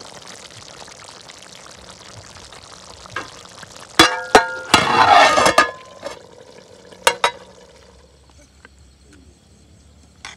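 A round metal lid being set onto a wok: two ringing metal clanks about four seconds in, then a short scraping slide of metal on metal, and another clank about seven seconds in. Before that there is only a low steady hiss.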